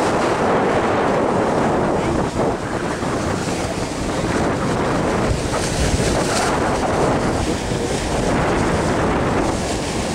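Wind buffeting the microphone on a boat under way, over the steady rush and splash of choppy water.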